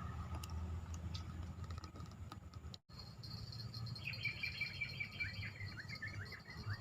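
A bird calling a quick run of short, downward-slurred chirps, about three a second, from about four seconds in. Under it runs a steady high insect hum, with a low rumble in the first part.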